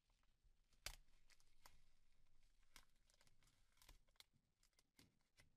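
Faint crinkling and crackling of a thin adhesive label being peeled off a smartphone's battery deck by gloved fingers, with several small sharp clicks.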